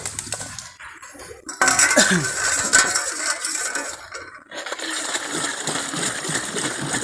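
A mixture of water and ground raw turmeric being stirred in a container, with rapid clinking and clatter that starts about one and a half seconds in and keeps going.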